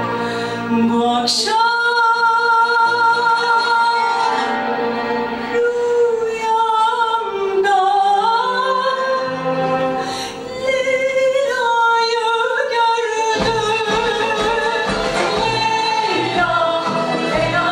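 Turkish classical (art) music performed live: voices singing a slow, sliding melody over an ensemble of violins, oud, kanun and percussion. A steady low beat comes in about two-thirds of the way through.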